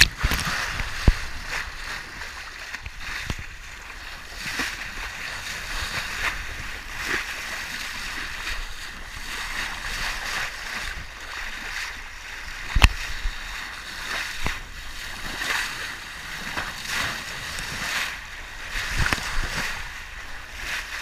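Sea water rushing and splashing along a sailboat's hull under way, swelling and easing with the waves. A few sharp knocks come through, one about a second in and a louder one a little before halfway.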